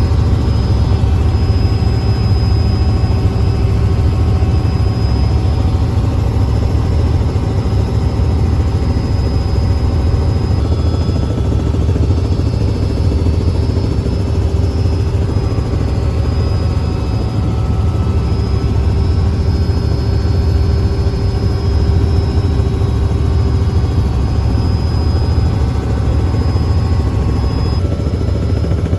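Helicopter running: loud, steady rotor and engine noise with a low rhythmic beat and a few constant higher tones.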